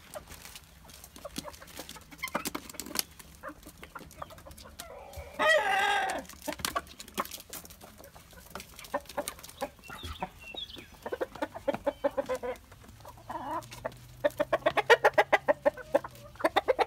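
Free-range chickens clucking around a handout of bread, with scattered sharp taps of pecking. One short loud call comes about five seconds in. Near the end a rooster gives a fast run of clucks, a food call to his hens.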